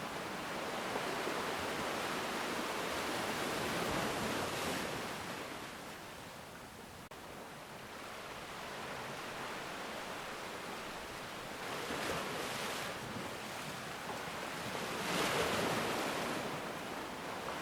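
Ocean waves breaking and washing up a black sand beach, a steady rush of surf. It swells in the first few seconds, eases in the middle, and swells again near the end, where it is loudest.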